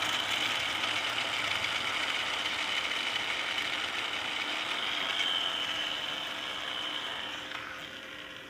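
A small motor whirring steadily, then fading out about a second before the end.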